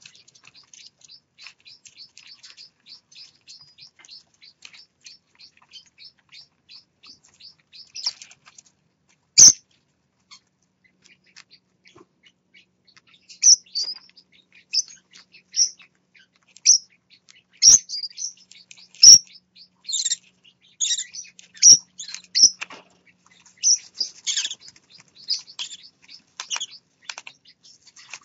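Parrotlet chicks giving rapid, faint, high begging chirps, about four or five a second, for the first third. A sharp loud click comes about a third in. From about halfway there are louder, separate high chirps, coming quicker near the end.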